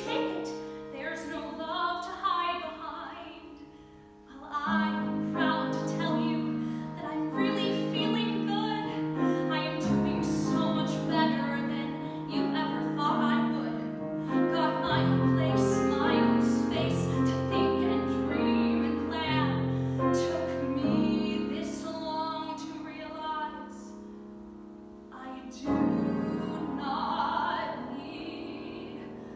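Solo female voice singing a musical-theatre song with piano accompaniment, sustained piano chords under the sung phrases. The voice pauses briefly twice while the piano carries on.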